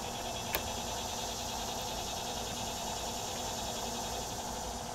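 Steady outdoor insect buzz with a low rumble underneath, and a single sharp click about half a second in as telescope mount parts are handled.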